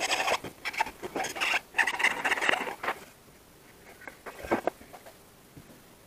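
Irregular scratching, rustling and scraping of parts being handled, dense for the first three seconds, then a few softer scrapes and clicks around four and a half seconds in.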